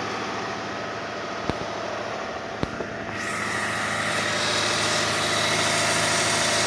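2005 Kia Sedona's 3.5L V6 idling steadily just after a cold start, running without accessory belts after a new timing belt and water pump. It runs smooth, with no ticking or knocking. Two light clicks come about a second and a half in and near the middle, and the engine grows louder and brighter about three seconds in.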